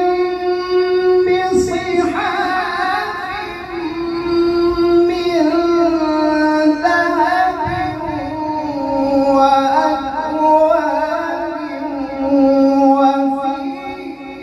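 A man reciting the Qur'an in slow, melodic tartil chanting. He draws out long held notes with ornamented turns, and his pitch settles lower in the second half.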